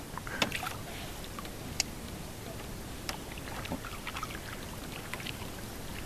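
Canoe paddle strokes in calm water: the paddle dipping and pulling with small splashes and drips, and three sharp knocks, the loudest at about half a second and just under two seconds in.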